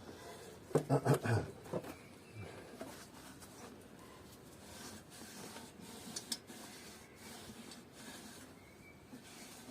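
Faint rubbing, scraping and small clicks of hands handling engine parts, with a short spoken murmur about a second in.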